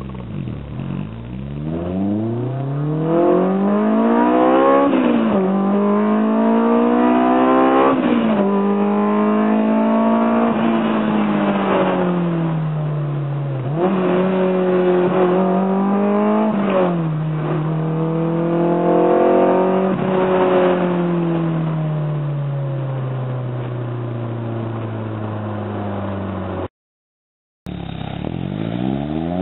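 Honda S2000's four-cylinder engine through a T1R 70R V3 70mm resonated single catback exhaust, accelerating hard. Its pitch climbs and drops back several times as it shifts up through the gears, then falls slowly as the car eases off. Near the end the sound cuts out briefly and starts again with another rising rev.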